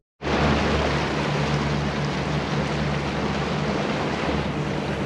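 Motorboat running across open water: a steady low engine drone under a constant rush of wind and water, cutting in after a split-second of silence.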